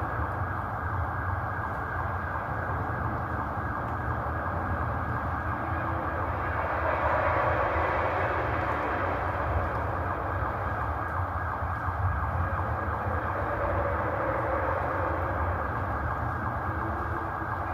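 A steady, low droning rumble coming from the sky, with no clear rhythm. It swells a little about seven seconds in.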